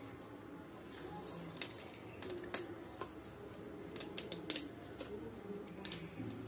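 Faint, irregular crisp clicks and rustles of fresh red rose petals being pulled off the flower head by hand, the loose petals dropping into a plastic tub.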